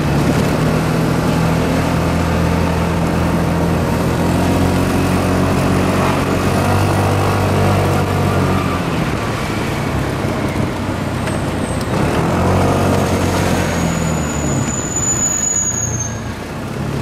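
Adiva 200 scooter's engine running on the move in city traffic, its revs rising and falling a few times. A thin, high squeal sounds briefly near the end.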